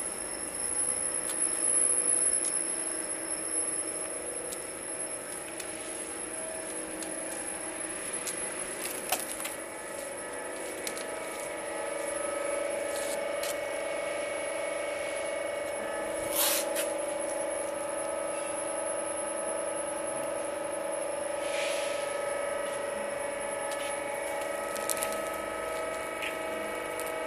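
CNC C-channel roll forming machine with a punching unit running: a steady mechanical whine and hum from its chain-driven rollers, with a few sharp clanks, the loudest a little past halfway.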